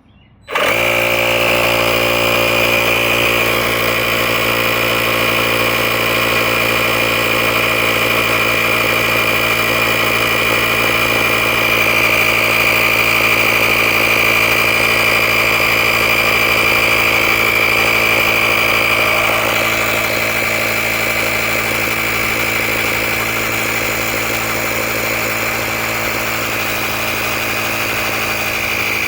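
Handheld tire-inflator air compressor switching on about half a second in and running steadily, pumping air toward a set pressure of 35 PSI. Its level dips slightly about twenty seconds in.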